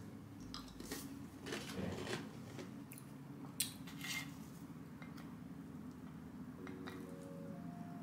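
Crisp crackers being bitten and chewed, with a few short crunches and clicks of crackers taken off a plate; the sharpest click comes near halfway.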